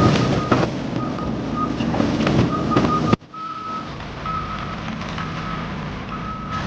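A vehicle's reversing alarm beeping repeatedly over engine rumble and scattered knocks. About three seconds in the sound drops off abruptly, and the beeping carries on over a quieter background.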